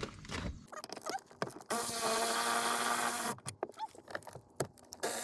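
VW Touareg power seat motor running for about a second and a half, a steady whir, with scattered clicks and knocks of plastic seat trim before and after.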